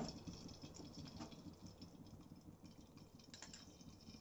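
Near silence: faint kitchen room tone with a few light clicks and taps, the clearest a little over three seconds in, as a small glass bowl of cooking oil is tipped against the rim of a steel pot.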